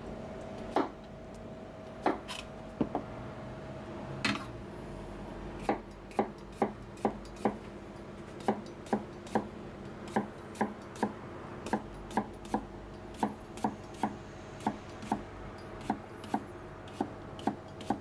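Kitchen knife slicing through a cucumber onto a plastic cutting board: sharp knocks of the blade hitting the board, a few scattered at first, then a steady rhythm of about two cuts a second from about six seconds in.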